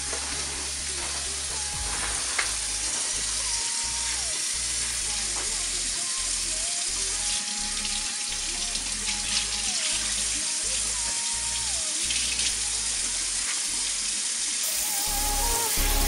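Kitchen faucet running steadily into a stainless steel sink as hands are washed and a raw steak is rinsed under the stream.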